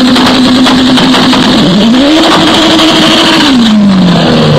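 Turbocharged B20 VTEC four-cylinder of a drag-race Honda Integra revved and held at a steady high pitch, dipping briefly, then revved higher and held flat again before the revs fall away near the end.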